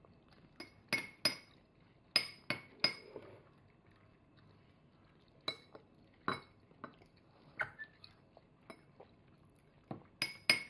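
A toddler's metal spoon and fork clinking and scraping against dishes while eating: a dozen or so sharp clinks in small clusters of two or three, some with a brief ring.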